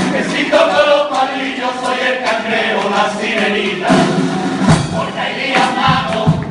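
Carnival murga chorus of men singing together in unison, with sharp percussive beats through the song.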